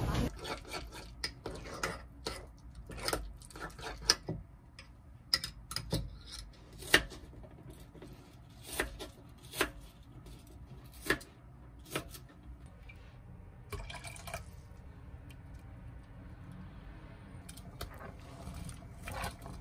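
Knife chopping vegetables on a plastic cutting board: sharp, irregular knocks about once a second for the first twelve seconds, then only faint handling sounds.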